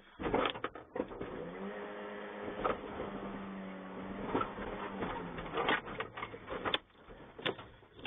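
Knocks and clanks of a pickup truck's sheet-metal hood as an elephant's tusks and head bash into it and crumple it, heard from inside the cab. A steady low hum runs under them from about a second and a half in until about five seconds in.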